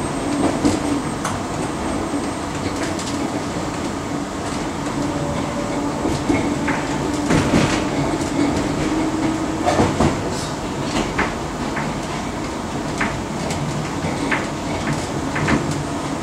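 Inside a London Underground District Line D Stock carriage running at speed: a steady rumble with a low hum, broken by irregular clicks and rattles.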